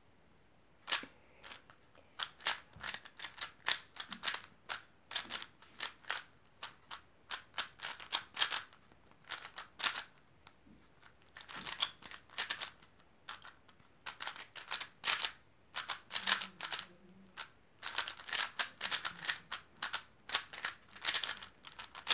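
A Moyu Weilong plastic 3x3 speedcube being turned fast during a timed solve: a rapid, irregular run of sharp clicks and clacks as the layers snap round, with a couple of brief pauses partway through.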